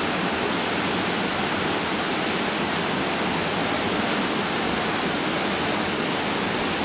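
Steady rushing noise of an indoor competition swimming-pool hall: an even hiss with no distinct events.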